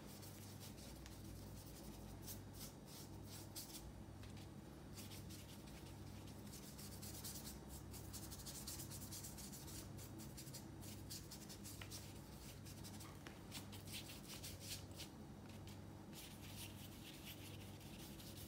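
Paintbrush rubbing wet acrylic paint over paper in repeated circling strokes, a faint scratchy brushing. A low hum pulses evenly underneath.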